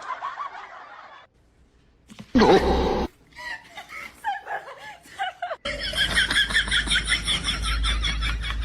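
High-pitched laughter in quick repeated pulses fills the last third, after a few short, separate sounds and a brief quiet gap.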